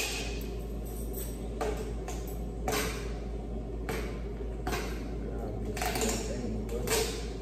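Kitchen work at a counter: several short scraping and rustling handling sounds, a few seconds apart, over a low steady hum.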